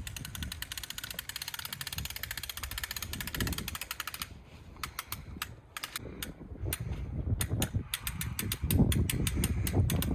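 Patio umbrella's crank being turned, its ratchet clicking rapidly, then in slower, uneven clicks from about four seconds in. Wind rumbles on the microphone, louder near the end.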